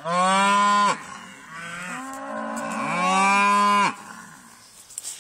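Cattle mooing in answer to a 'sook' feed call: two long, loud moos, one right at the start and one about three seconds in, with quieter moos from other cattle between them.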